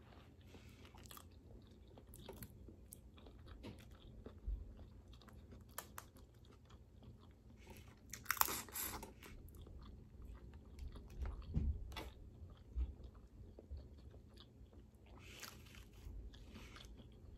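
A person eating boiled crawfish close to the microphone: chewing and biting, with scattered small cracks and clicks of shell. There is one louder, crackly burst about eight seconds in.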